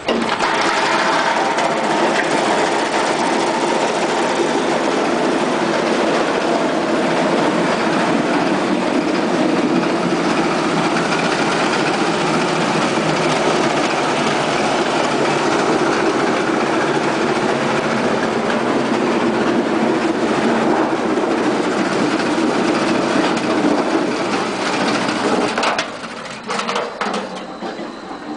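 Roll-forming machine for frameless arched hangars running, drawing a galvanized steel channel profile through its rollers and crimping it into a curved, corrugated arch panel. A loud, steady metallic machine noise that drops off about two seconds before the end.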